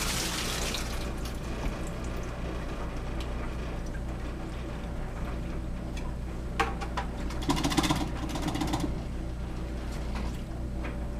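Old standing water draining out of a pipe into a bucket as its check valve is released. It comes as a gush at first, then settles into a steady run. A few knocks and a rattle come about two-thirds of the way through.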